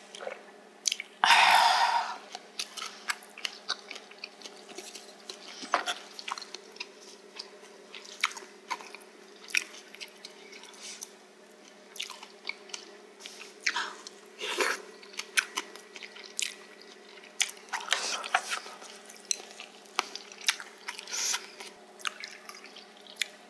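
Close-miked eating: chewing and crunching on spicy pork cartilage (odolppyeo), heard as many scattered crisp clicks and crunches. A short loud hiss-like burst comes about a second in, and soju is poured into a shot glass near the end.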